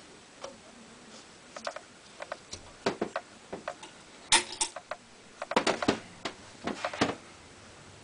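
Irregular sharp clicks and light knocks from a hand handling the Hunter ceiling fan around its switch housing. They bunch together a little past the middle.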